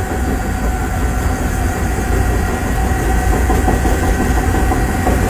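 A large crawler bulldozer's diesel engine running steadily, with a deep rumble and a thin steady whine over it.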